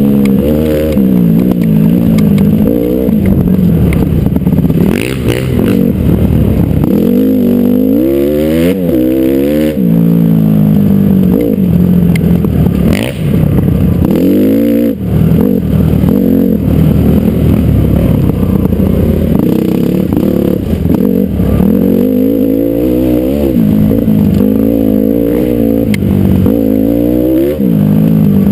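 Honda CRF450R dirt bike's single-cylinder four-stroke engine heard from on board, revving up and falling back over and over as the rider accelerates and shifts along a trail. There are a couple of sharp knocks, about five and thirteen seconds in.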